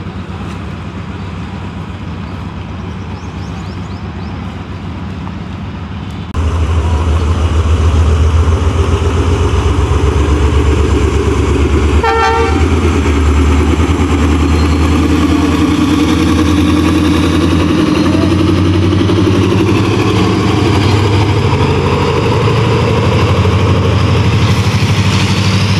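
Diesel locomotive passing, its engine a steady low drone that becomes suddenly louder about six seconds in, with one short horn toot about twelve seconds in.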